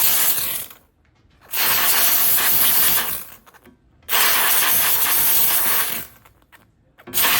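Handheld steam cleaner jetting steam in four trigger-pulled blasts, each a second or two long with short gaps between them, hissing loudly.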